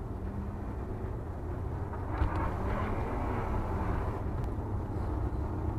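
A car driving on a snow-covered road, heard from inside its cabin: a steady low rumble of engine and tyres, with a rise in hiss from about two seconds in.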